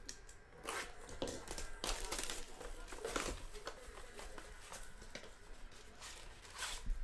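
Cardboard blaster box of Panini Mosaic basketball cards being torn open and handled: a run of short rips, rustles and scrapes of the paperboard as the top flap is pulled open.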